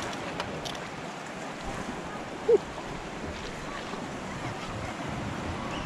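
Sea water washing against shoreline rocks, with wind on the microphone. A brief loud squeak about two and a half seconds in.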